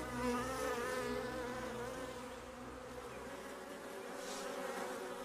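Honeybees buzzing, a wavering drone of several pitches, strongest in the first couple of seconds and then a little softer.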